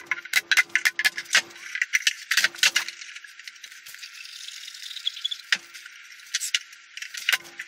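Nail gun shooting brad nails through thin wooden strips into a plywood cabinet side, in quick runs of sharp clicks, with a quieter pause of wood handling in the middle.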